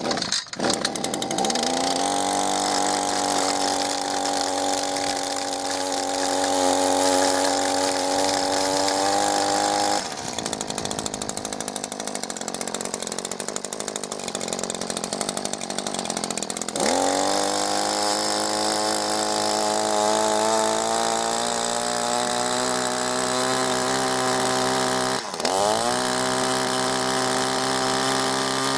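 Echo SRM-2620T string trimmer's two-stroke engine catching on its first start off choke and running at high throttle. About ten seconds in it drops to idle, then revs back up about seven seconds later, with a brief dip and recovery near the end.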